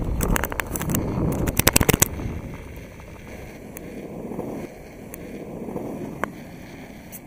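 Electric skateboard rolling over pavement: a quick run of clicks and clatter in the first two seconds, then a quieter, steady rolling noise that fades.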